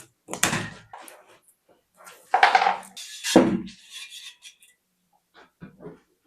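Handling noises: three short scraping clatters in the first four seconds, the middle one the loudest, then a few faint taps near the end.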